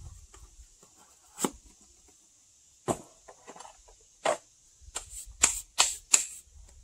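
Hand rubbing on a polished aluminum truck wheel: about seven short, sharp scraping strokes, a few seconds apart at first and coming quicker near the end, as the rim is hand-sanded and wiped of aluminum dust.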